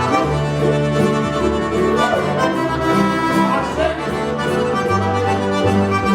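Live Cajun and string-band music led by a Cajun accordion, with fiddle.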